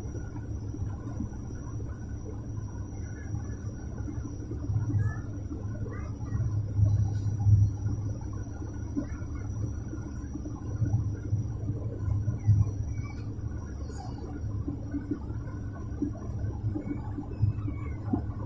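Propeller airliner's engines and propellers droning, heard from inside the passenger cabin: a steady low hum with a strong deep tone that swells briefly about seven seconds in.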